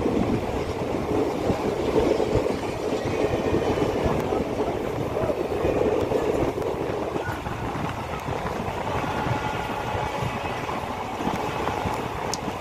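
Diesel-electric multiple unit (DEMU) passenger train running at speed, heard from inside the coach: a steady rumble and rush of wheels on the track.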